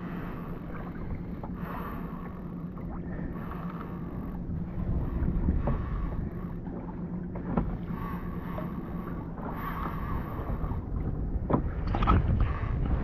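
Wind buffeting the microphone and choppy sea water lapping against a plastic fishing kayak's hull, with a few short knocks and louder near the end.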